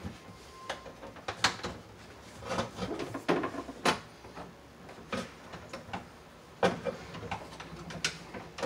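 Irregular clicks and knocks of wires and metal parts being handled inside an electrical breaker panel.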